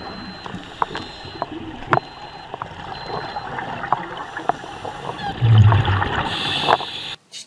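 Scuba diver breathing underwater through a regulator: a steady bubbly gurgle with small clicks, a loud low bubbling rush of exhaled air about five and a half seconds in, then the hiss of an inhaled breath, cut off suddenly near the end.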